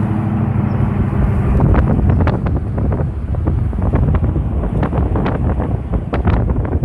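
Wind buffeting the microphone of a camera held at an open window of a moving car, over the car's low road and engine hum. The hum is steady for the first couple of seconds; after that the wind hits the microphone in irregular gusts, and the noise drops off suddenly at the end.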